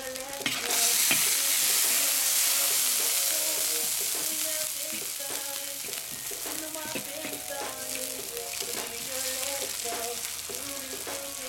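Meat and sliced onions frying in hot oil in a cast-iron kazan: a loud sizzle that jumps up about a second in and then slowly eases. A metal spatula clicks and scrapes against the pot as the food is stirred.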